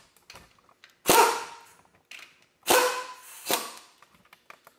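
Three sharp metallic cracks, each with a brief ring: one about a second in, then two close together near three seconds. These are the 14 mm nuts on a Toyota Land Cruiser 100 Series front hub flange being broken loose.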